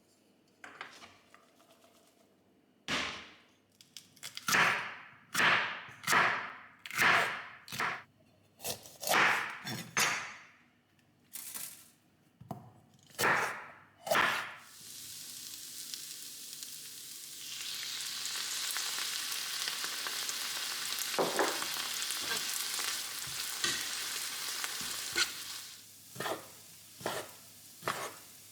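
Food sizzling in a frying pan: the sizzle starts about halfway through and grows to a steady hiss, with a few short knocks of stirring near the end. Before it comes a series of about a dozen separate strokes, roughly one a second.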